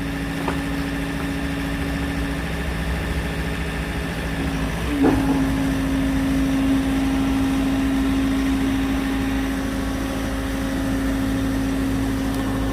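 Engine of the machine that powers a hydraulic log splitter, running steadily with a constant hum. About five seconds in there is a short knock; the tone dips briefly and then runs on a little louder.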